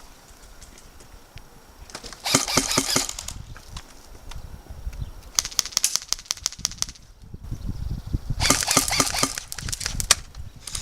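Airsoft guns firing three bursts of rapid shots: fast strings of sharp clicks, each lasting a second or so.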